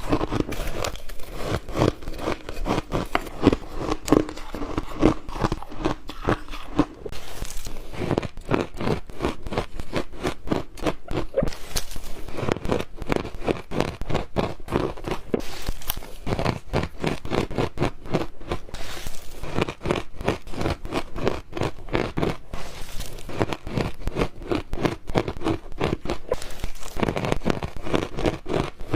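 Ice being bitten and crunched between teeth close to the microphone: a dense, continuous run of rapid crackling crunches.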